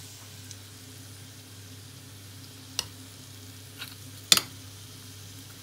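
Syrniki frying in vegetable oil in a frying pan, a steady faint sizzle. A spoon clinks three times over it, the loudest clink about four seconds in.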